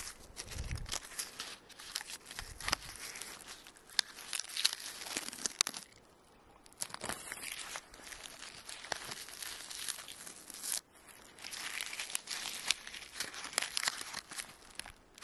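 Thin, papery birch bark being peeled and torn from the trunk by hand, with dry crackling and crinkling as the strips come away and are bunched in the hand. There is a brief lull about six seconds in.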